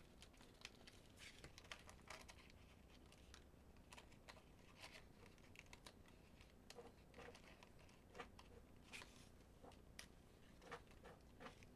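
Faint crinkling and small scattered snaps of paper as die-cut cardstock pieces are pushed out of their sheet.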